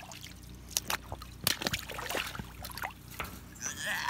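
Water splashing and dripping in irregular bursts as a salmon is handled and lifted in a wire basket sunk in the river.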